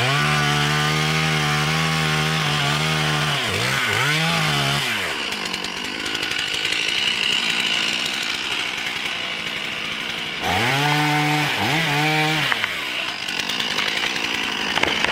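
Two-stroke chainsaw revving high and steady, then easing off and revving again in quick blips. A stretch of steady rasping noise follows, and the saw revs up again and falls back near the end.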